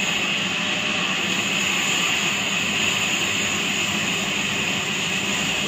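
Sawmill band saw running steadily: a continuous machine noise with a high whine on top, holding level with no cut starting or stopping.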